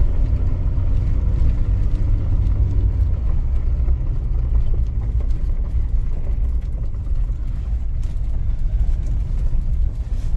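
Mahindra Thar driving on a steep, rough unpaved track: a steady low rumble of engine and tyres on the loose surface.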